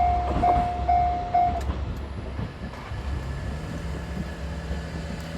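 Level-crossing warning bell ringing in a fast repeated tone, cutting off about one and a half seconds in, over the low rumble and wheel knocks of a KiHa 47 diesel railcar passing. The cutoff marks the crossing clearing once the train has gone by.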